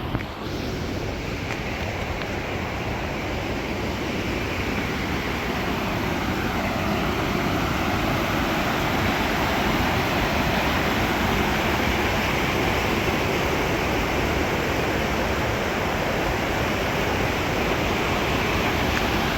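Waterfall's rushing water, a loud, steady roar of falling water.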